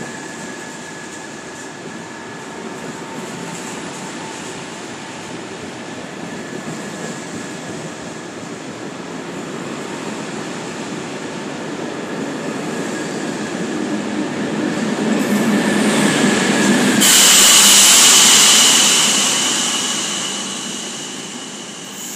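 SNCB M6 double-deck coaches rolling past as the train pulls out, a steady rumble growing louder. About seventeen seconds in, the class 27 electric locomotive pushing at the rear passes, much louder, with a steady high tone over the noise, then fades as the train draws away.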